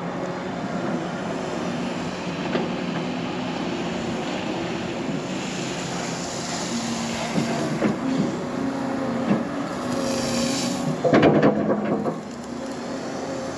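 An engine running steadily, its pitch stepping up slightly about seven seconds in, with a short, loud burst of noise around eleven seconds in.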